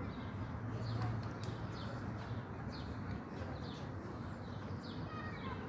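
Many small birds chirping in quick, short, falling notes, scattered throughout, over a steady low background rumble.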